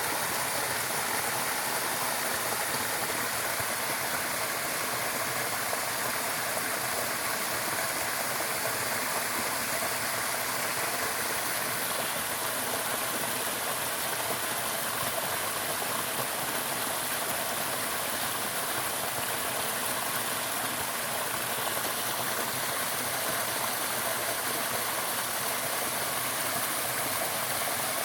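Steady rushing of flowing water, like a stream running over rocks, an even hiss with no breaks.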